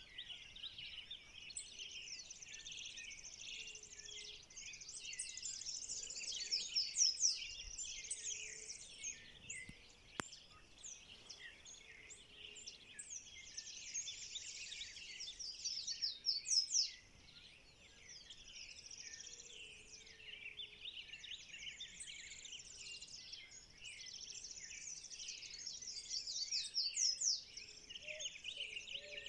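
Dawn chorus of many birds singing over one another, full of fast high trills and chirps. It swells about a quarter of the way in, again past the middle and near the end. Under it are faint low calls and one sharp click about a third of the way through.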